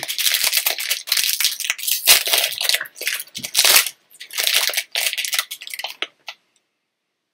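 Crinkly plastic snack wrapper being handled and torn open, a dense crackling that goes on for about six seconds and then stops.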